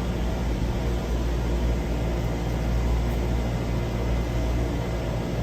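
Steady low machinery hum with an even rushing noise, unchanging throughout.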